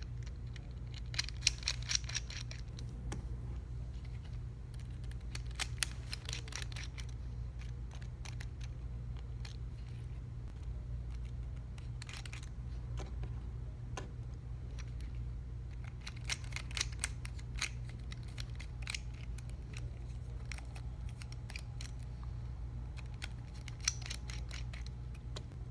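Repeated clusters of small, sharp clicks and taps from small repair tools working on an iPhone 6s's parts during disassembly, over a steady low hum.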